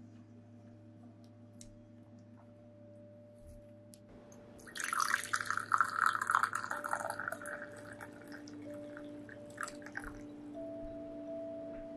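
Water poured in a thin stream into a glass cup, starting about five seconds in, strongest for the first two seconds, then easing into a trickle and a few drips that stop about ten seconds in.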